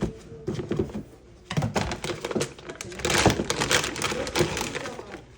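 Rapid clatter of small knocks and clicks with rustling, from objects being handled, busiest from about a second and a half in.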